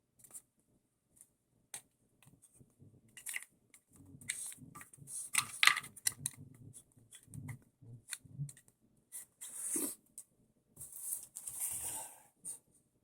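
Irregular clicks, taps and rattles of small plastic and metal parts being handled and fitted by hand, with a few soft knocks and short rustles, busiest in the middle and again near the end.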